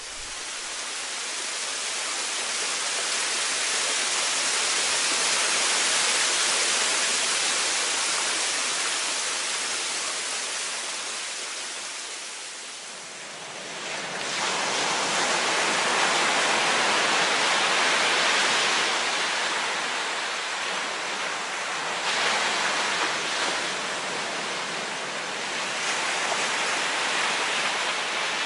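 Steady rushing of water. It swells over the first dozen seconds, dips briefly, then rises again and holds.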